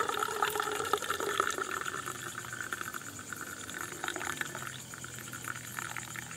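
Coffee poured from a stainless steel coffee press into a stainless steel double-walled mug, a steady trickle of liquid that grows fainter toward the end.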